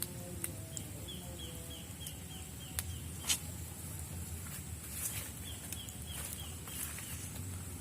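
A bird calling in two quick runs of short, falling chirps, about four a second, over a steady low background. A few sharp snaps stand out, the loudest a little past the middle.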